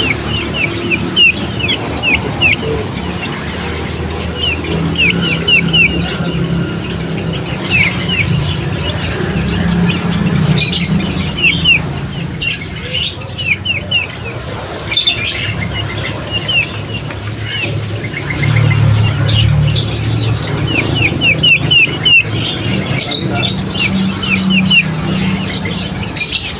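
Birds chirping in quick runs of short, sharp calls, with scattered clicks over a steady low hum. This is a bird-luring recording meant to attract magpies and similar songbirds.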